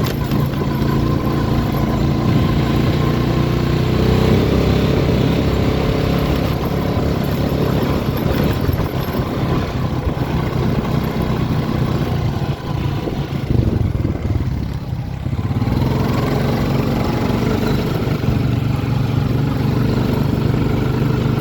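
ATV engine running steadily while riding, easing off briefly about two-thirds of the way through, then picking back up.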